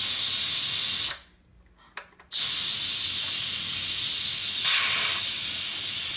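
Instant Pot pressure-release valve venting steam in a loud, steady hiss: a quick release of pressure after pressure cooking. The hiss drops out for about a second shortly after the start, then carries on.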